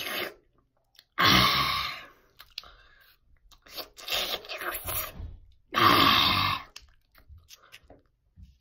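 Close-up chewing and crunching of food right at the microphone, in three loud bursts about a second apart to a couple of seconds apart, with quiet between.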